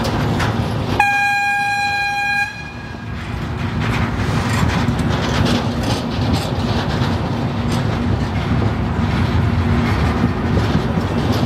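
Train horn sounding one steady note for about a second and a half, over the rumble and clatter of a train running on the rails.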